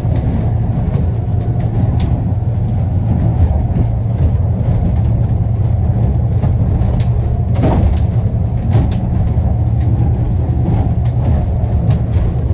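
Boat under way at speed, heard from inside the wheelhouse: the twin Honda 250 hp outboards and the rush of water on the hull give a loud, steady low rumble, with a few brief knocks.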